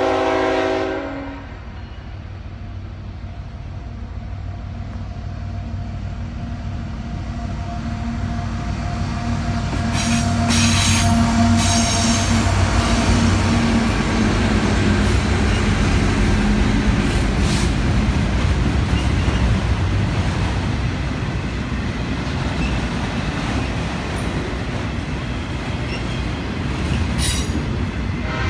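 A CSX diesel freight locomotive's horn ends about a second in; the locomotive's engine rumble then builds, at its loudest as it passes about halfway through. Autorack freight cars follow with a steady rolling rumble and sharp wheel clanks at times.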